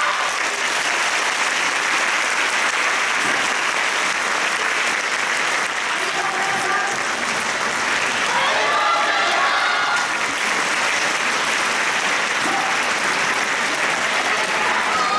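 Audience applauding steadily after the music ends, with a few voices calling out faintly near the middle.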